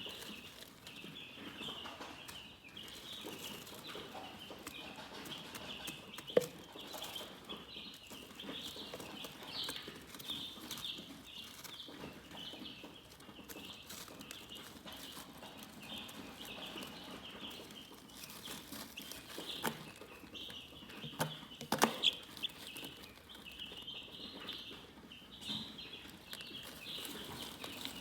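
Chickens chirping continuously, a dense, high-pitched chatter of many overlapping peeps, with a few sharp knocks about six seconds in and around the three-quarter mark.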